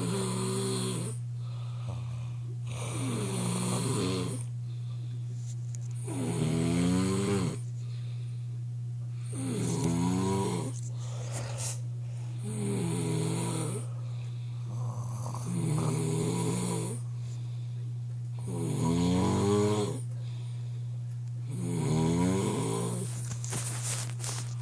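A person snoring hard in a steady rhythm, one loud pitched, rattling snore about every three seconds, over a steady low hum.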